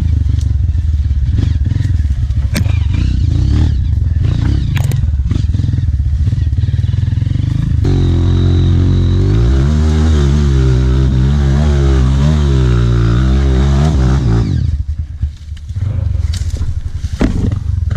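Honda CRF trail bike's single-cylinder four-stroke engine running under load, revving hard and unevenly for several seconds in the middle, then dropping off briefly before pulling again. The uneven high revs go with the rear tyre struggling for traction.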